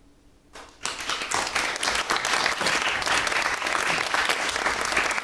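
After a brief quiet, the audience starts applauding a little under a second in, and the clapping carries on steadily.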